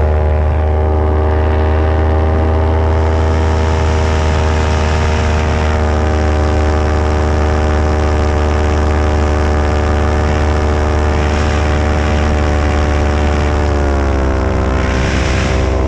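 Paramotor engine and propeller running steadily under a hiss of rushing air. About fourteen seconds in, the pitch drops as the engine slows, and a short rush of air follows.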